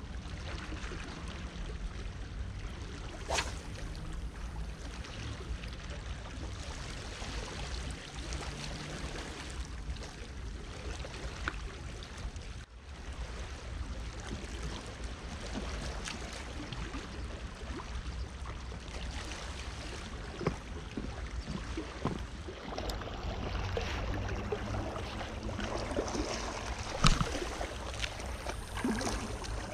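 Steady noise of a calm sea washing against shore rocks, with a low rumble throughout. A sharp click a few seconds in, and a few clicks and knocks near the end as the camera is handled.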